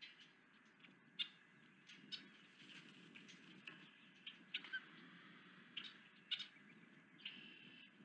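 Faint, scattered short high-pitched bird chirps, about a dozen in eight seconds with a slightly longer call near the end, over a low steady background noise.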